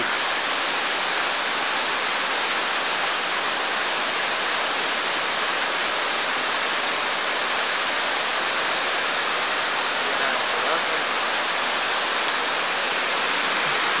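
A small waterfall and stream rushing steadily: an even, unbroken hiss of falling water.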